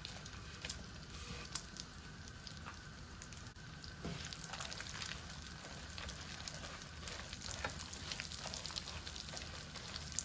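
Sliced almonds and cashews sizzling and crackling in hot ghee in a wok as they are stirred. The popping grows denser about four seconds in.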